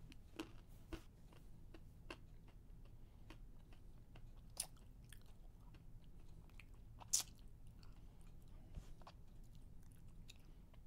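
Faint low hum with scattered irregular clicks and crackles, the loudest about seven seconds in.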